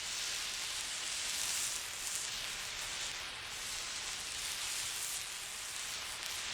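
Burning emergency flare giving off a steady hiss that rises and falls slightly in strength.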